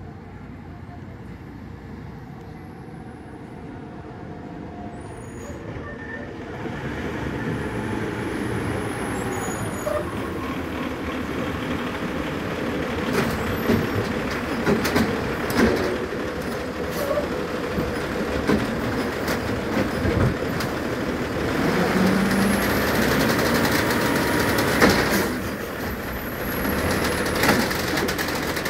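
Autocar WX64 garbage truck with an Amrep automated side-loader, its diesel engine getting louder as it pulls up, with a hiss of air brakes. The hydraulic arm then clanks as it grabs and lifts the cart.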